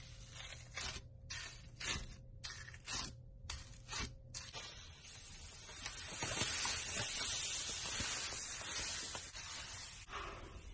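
Slime being worked by hand: a string of short, crackly squishes, then about five seconds of continuous crackling hiss.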